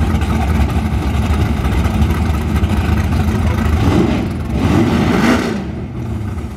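Red Chevrolet Nova drag car's engine idling loudly with a deep, steady rumble as the car creeps forward, with a brief rise and fall in engine pitch about four seconds in.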